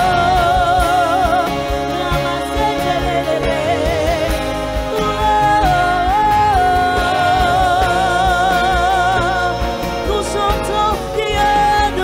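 Woman's lead vocal singing a gospel worship song in long held notes with wide vibrato, over continuous instrumental accompaniment.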